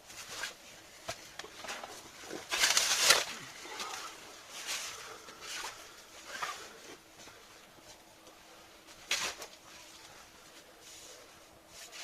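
Material being thrown onto a smouldering smudge fire: scattered scrapes and rustles, the loudest a harsh scrape of under a second about three seconds in, with a few shorter ones after it.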